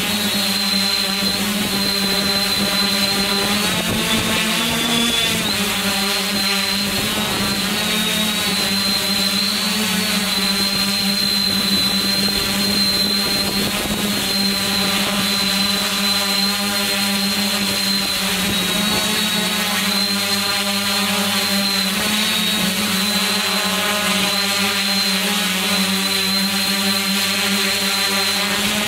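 Multirotor drone's electric motors and propellers running steadily in flight: a low hum with a high whine above it, their pitch wavering slightly up and down, with small dips about five and eight seconds in.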